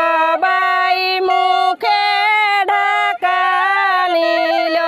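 A woman sings a Karam geet folk song solo and without accompaniment. She holds long notes that step up and down in pitch, with short breaks between phrases.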